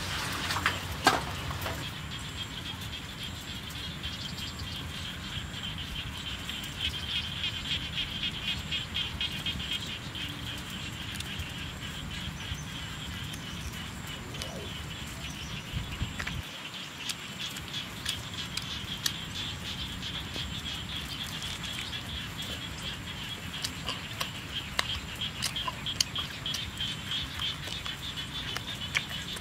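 Rural outdoor ambience: a steady, high-pitched chorus of calling animals pulsing rapidly, over a low rumble, with a few faint clicks.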